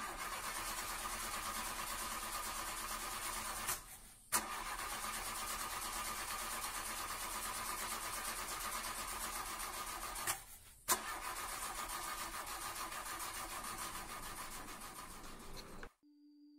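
Car engine running with a fast, even pulse. The sound drops out briefly twice, about four and ten and a half seconds in, coming back each time with a sharp click, and cuts off just before the end.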